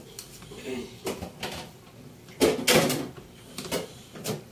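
Metal ladle knocking and scraping in a metal pan during stirring: a handful of short clatters, the loudest a close pair about two and a half seconds in.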